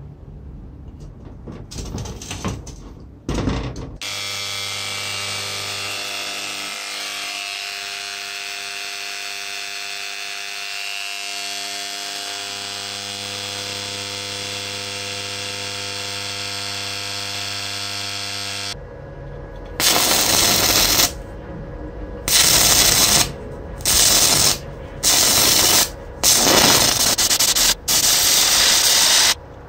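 Restored antique electric chisel running with a steady, even buzz for about fifteen seconds, after a few seconds of handling knocks. Then a louder electric welding arc crackles and hisses in bursts of a second or two with short breaks.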